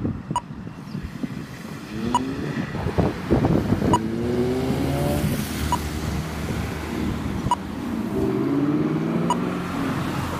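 Motor engines running and revving up and down, with a sharp regular click about every two seconds, like a metronome.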